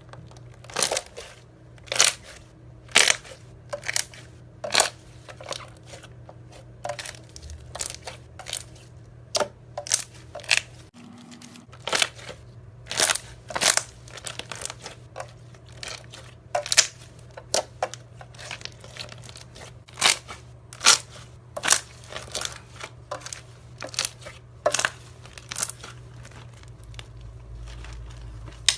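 Slime being squished and stretched, giving irregular sharp pops and clicks, about one or two a second.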